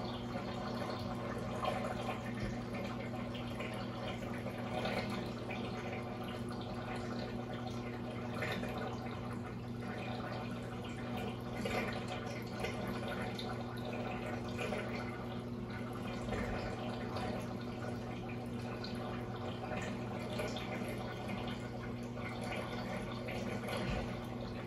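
Aquarium water trickling and splashing steadily, typical of a tank's filter return, over a steady low hum from its pump.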